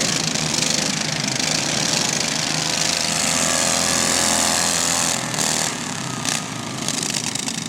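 Riding lawn mower engines running. One engine's note stands out clearly in the middle, then the sound eases slightly.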